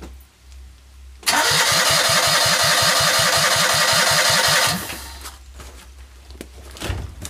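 Citroën 2CV's air-cooled flat-twin engine turned over on the starter motor for about three and a half seconds, an even loud chuffing of about six compression beats a second, then stopping abruptly. It is being cranked without running to build oil pressure and take a compression reading, which comes out near 120 on the gauge.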